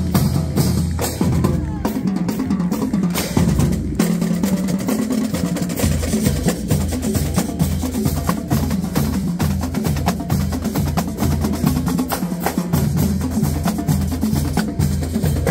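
School marching band playing: snare and bass drums beat a steady parade rhythm under saxophones and other horns.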